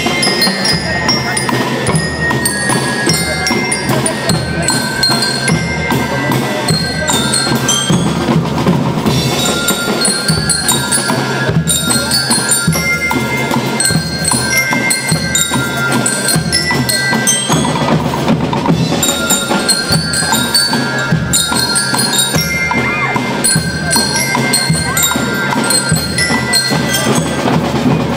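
School rhythm band playing: bell lyres ring out a bright melody of short notes over steady snare and bass drumming.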